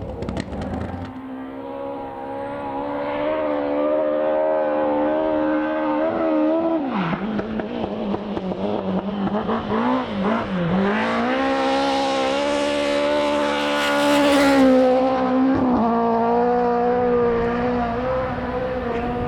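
Rally car engine held at high revs on a stage, its note dipping sharply twice in the middle as the driver lifts and shifts, then climbing back and getting louder to a peak about fourteen seconds in as the car passes close.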